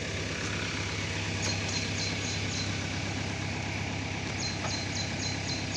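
Heavy diesel engine idling steadily with an even low throb, from the backhoe loader and tractor on site. Runs of quick, high-pitched chirping pulses, about five a second, come and go over it, in the first half and again near the end.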